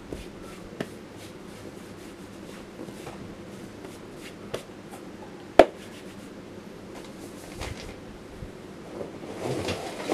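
Quiet handling noises from caps and a cardboard box: scattered small clicks and light rustles, with one sharp click about halfway through. Near the end there is a longer rustle as a cap is lifted out of the box.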